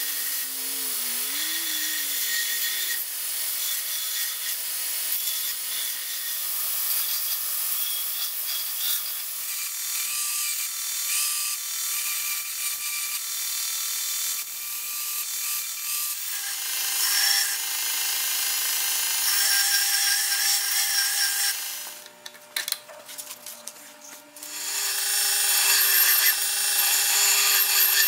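Ameribrade belt grinder running with a steady whine as an O-1 tool steel cleaver blank is ground against the moving abrasive belt, a continuous hissing grind. Near the end it drops away for a couple of seconds, then comes back louder.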